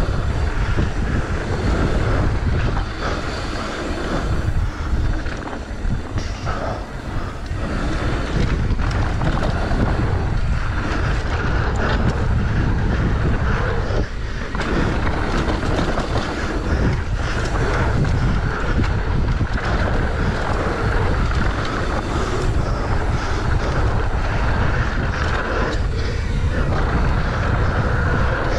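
Mountain bike running fast down a dirt flow trail: a steady rush of tyres rolling over hardpacked dirt and loose gravel, mixed with wind buffeting the microphone. The loudness dips briefly a few times.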